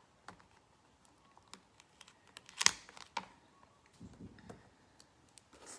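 Small taps and clicks of hand stamping at a craft table: a stamp being inked and pressed onto white cardstock, with one louder knock a little under three seconds in.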